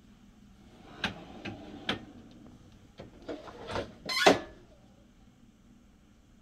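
Hotronix Fusion IQ heat press being worked by hand: metal knocks and clatter as the platen is slid into place and the handle is pulled down, ending in a loud clunk about four seconds in as the heated upper platen clamps shut on the shirt.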